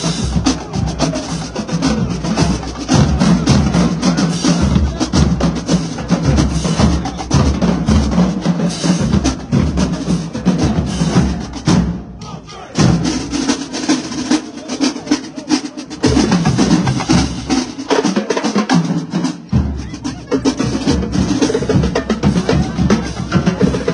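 Marching drumline of snare drums, cymbals and bass drums playing a fast, loud cadence. The bass drums drop out twice in the second half while the snares keep going.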